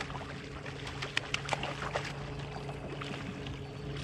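A boat motor hums steadily throughout, with scattered sharp splashes and slaps of water from a hooked trout thrashing at the surface beside the boat as it is netted.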